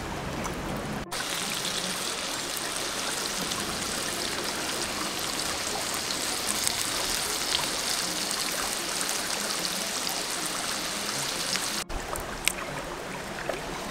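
Steady rushing of a stream, with a few faint small pops over it.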